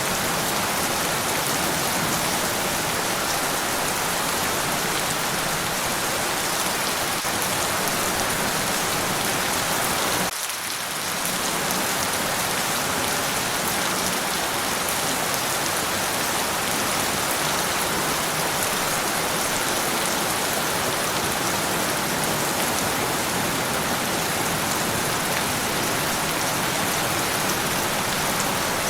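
Steady rain falling, an even hiss of countless drops, which dips briefly about ten seconds in.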